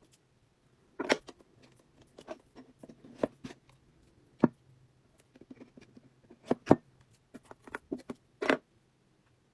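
Loaf of cold process soap being cut into bars: a string of irregular clicks and knocks from the cutter and bars against the work surface, the two loudest about four and a half and six and a half seconds in.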